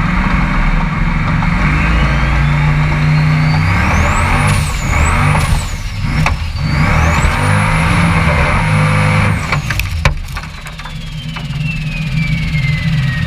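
Formula Offroad buggy's engine running hard under load up a steep hill climb, heard from inside the open cockpit, with a high whine that rises and falls with the revs. Near ten seconds a few sharp knocks come, the engine eases off, and the whine winds down in one long fall.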